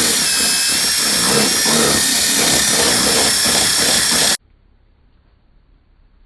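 Power drill running steadily with a high whine, drilling holes to mount quick-release fasteners on a car's front lip. It cuts off suddenly about four seconds in, leaving only faint background noise.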